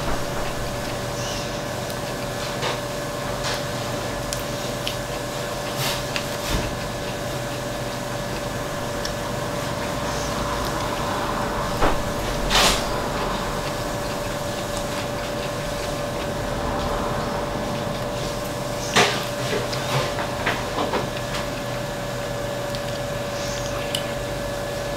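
A steady room hum with one constant tone, broken by scattered short knocks and clatters. The loudest come about halfway through and again about three quarters of the way through.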